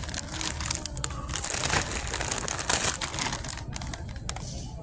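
Plastic wrapper of an Oreo cookie package crinkling as it is handled and turned over, a dense crackle that dies down near the end.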